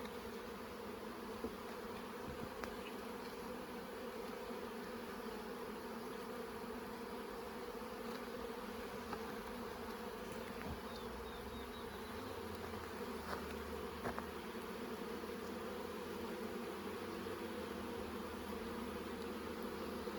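Honeybees humming steadily around an open hive during an inspection, a dense buzz with a few faint clicks of frames being handled.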